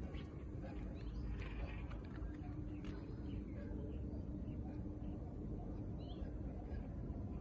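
Outdoor ambience: a steady low background rumble with scattered short bird chirps, a few about a second in and again near the end.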